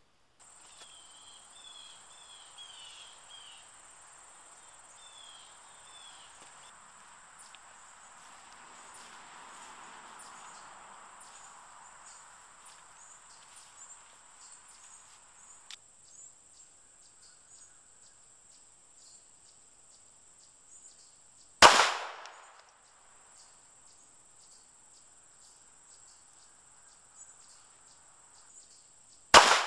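Two sharp shots from a Walther P22 .22 LR pistol, about eight seconds apart, the second near the end. They sit over a steady high insect buzz.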